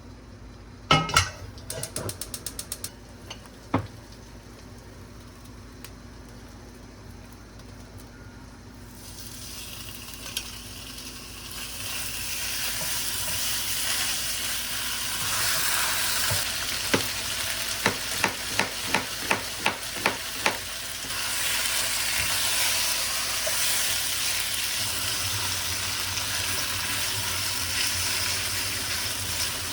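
Food frying in a pan: a hiss starts about nine seconds in and builds to a steady sizzle. A row of quick, evenly spaced taps comes in the middle as the food is stirred against the pan. Near the start there are a few sharp knocks and a short run of fast clicks.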